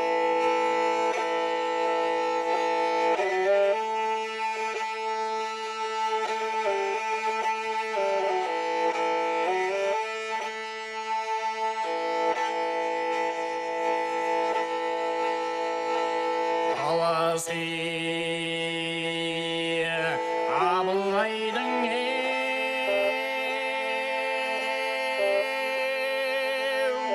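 Kobyz, the Kazakh bowed string instrument, playing a slow, sustained melody over held notes. About two-thirds of the way through, a wavering passage with strong vibrato sounds higher and fuller before the lower line returns.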